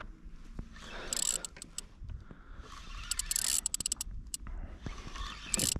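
Spinning fishing reel being wound in by hand in short spells, its gears whirring with rapid fine clicks.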